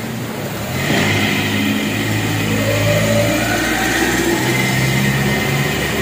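Can pallet-handling machine running in automatic: a steady motor and drive hum, with a rising whine from about two seconds in as a motor speeds up.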